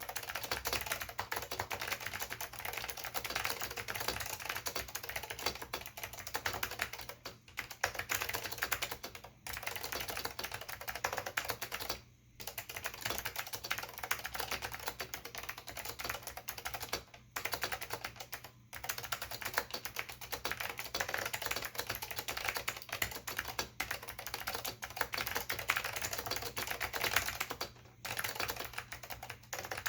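Continuous fast typing on an Acer KB-101AS keyboard with clicky Alps SKCM Blue switches and doubleshot keycaps: a dense stream of key clicks, broken by a few brief pauses.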